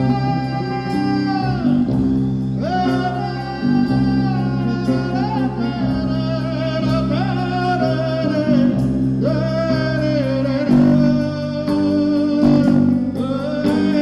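Live band music: a vocal line sung in long held, wavering notes over electric bass guitar and the band.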